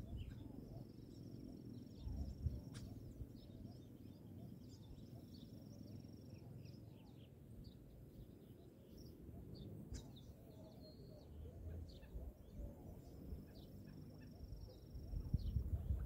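Faint outdoor nature ambience: scattered small bird chirps and a few high, thin, held whistles about two seconds long, over a low rumble that grows louder near the end.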